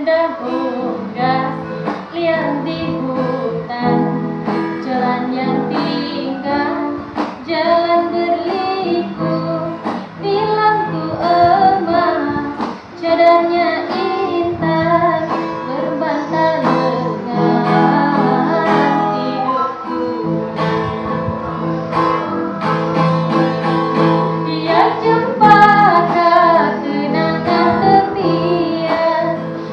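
A girl singing a Malay song in a clear, sweet voice, with instrumental backing in which a plucked guitar is heard.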